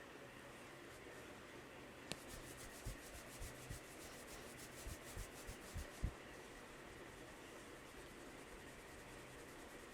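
Hands rubbing briskly through hair and over the scalp in a head massage, a quick, regular rasping that starts about two seconds in and stops about four seconds later, with several soft thumps mixed in.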